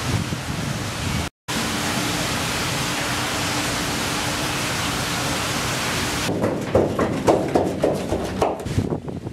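A steady, even hiss of outdoor ambience, cut off briefly about a second in, then from about six seconds in a run of irregular thuds and knocks, roughly three a second, that fit a man's running footsteps in a carpeted hotel corridor.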